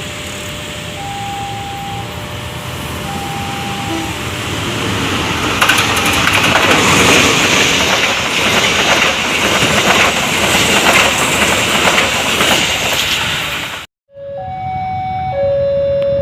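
A train passing close by, its rumble and wheel clatter on the rails growing loud about halfway through. A two-tone electronic warning alternates at the start, typical of a level-crossing alarm. The sound cuts off suddenly near the end and comes back with the same two-tone alarm.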